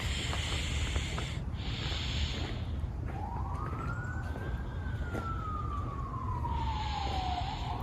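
An emergency vehicle siren wailing: its pitch rises for about a second and a half, falls slowly for about three seconds, then starts rising again near the end. Under it there is a steady low rumble and a few short bursts of hiss.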